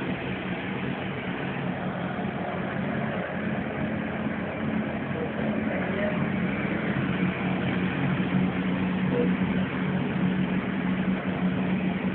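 Commercial gas-fired chicken cooking machine running: a steady mechanical hum with a constant low drone, growing slightly louder over the last few seconds.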